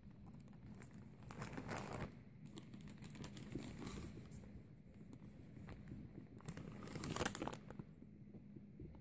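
Plastic packaging crinkling and rustling as balloon packets and a bagged balloon pump are handled, with two louder spells, about a second and a half in and about seven seconds in.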